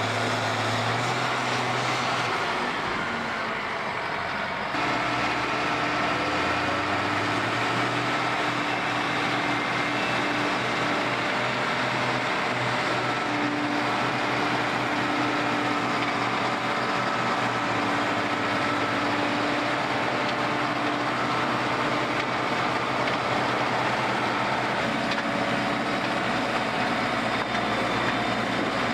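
Heavy diesel construction machinery running steadily, with the engine note changing around five seconds in and then holding.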